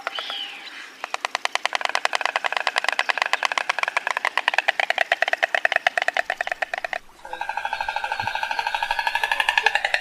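Stork bill-clattering: a fast, rattling run of many clicks a second that starts about a second in, breaks off briefly near the seventh second, then starts again.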